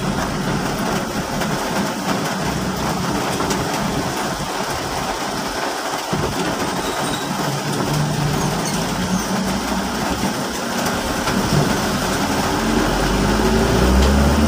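Steady road noise from inside a moving car on a wet street: tyres hissing on wet asphalt over the engine's running note, with light rain that is starting to ease. The low engine note grows louder near the end.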